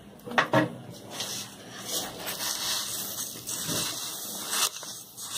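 Sugar being added to a pan of thick simmering gajrela (carrot and rice milk pudding): two quick knocks about half a second in, then a steady rustling scrape in the pan.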